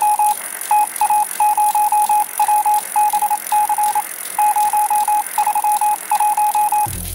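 Electronic beeping: one high tone pulsed rapidly in short, irregular clusters, over a steady high hiss. A deep bass sound comes in near the end.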